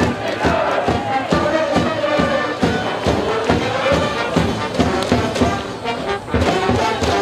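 High school brass band playing a baseball cheer song: brass melody over a steady drum beat.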